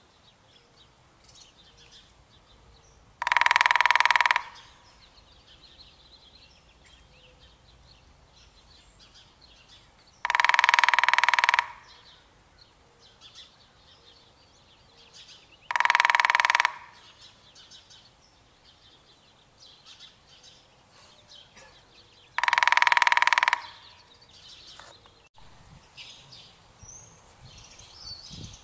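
Woodpecker drumming in four loud bursts of about a second each, roughly six seconds apart, each burst with a ringing tone. Faint chirps of other birds come between the bursts.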